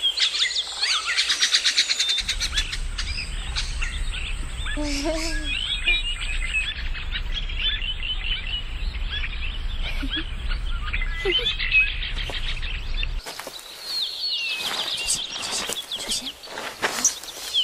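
A dense chorus of many birds chirping and calling over one another. A low steady hum runs underneath from about two seconds in until a few seconds before the end.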